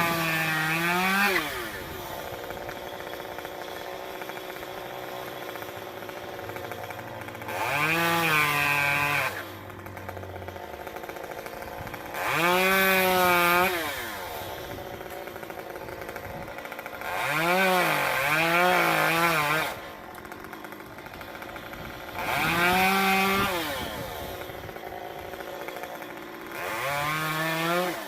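Stihl MS 192T two-stroke top-handle chainsaw idling and revved to full throttle about six times, each burst a second or two long. The engine pitch dips and recovers within each burst, as the saw cuts through the cherry tree.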